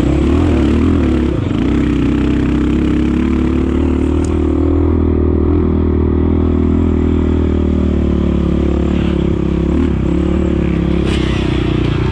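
Off-road motorcycle engine running loud and steady, its pitch wavering a little as the revs shift.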